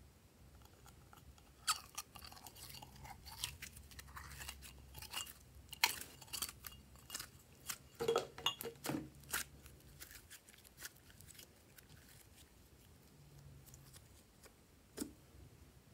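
Thick purple slime being scooped out and squeezed by hand, giving many small sticky clicks, pops and squelches. They come thickest in the first ten seconds or so, then thin out to a few, with one sharper pop near the end.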